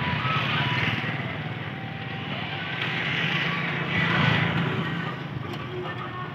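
Bedford truck engine idling steadily.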